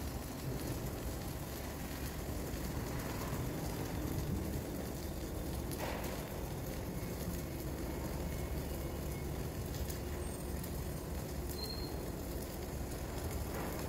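Flux-cored arc welding: the wire-feed arc crackling steadily, over a low hum.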